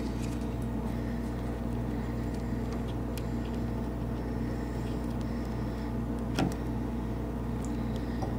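A steady low mechanical hum, with a few faint ticks and one sharper click about six seconds in.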